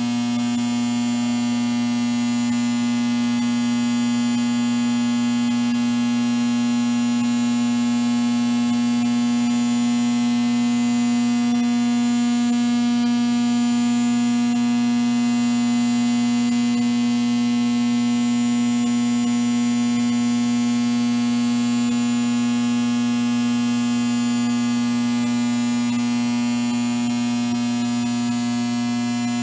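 Steady electrical hum and buzz: a strong low drone with many higher overtones and a hiss above it, unchanging throughout.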